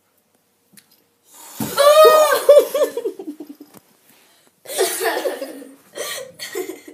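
A person laughing: a loud burst of laughter about a second and a half in, breaking into quick repeated pulses, then a few shorter bursts of laughter near the end.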